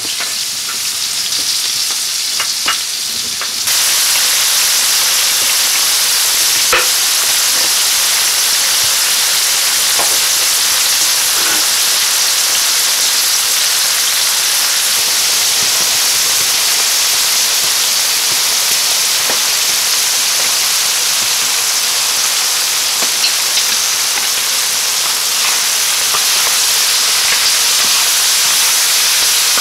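Pork chops and chopped onions sizzling in hot fat on a plow-disc pan (disco de arado): a steady, dense frying hiss with a few small pops. It gets louder about four seconds in.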